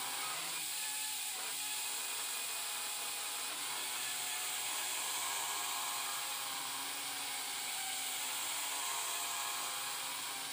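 Homemade foam-sheet mini quadcopter's four tiny motors and propellers running at speed, a steady high-pitched whine.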